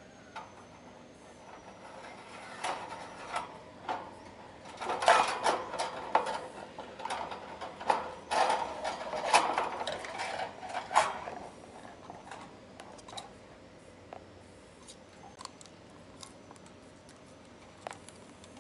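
Sugar glider clambering on a wire cage: its claws click and scrabble on the metal bars and the wire rattles, in dense bursts through the middle of the stretch, then only the odd click.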